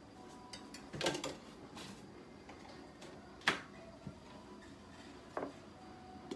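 A few sharp clicks and knocks over quiet room tone: a small cluster about a second in, the loudest single knock about three and a half seconds in, and another near the end.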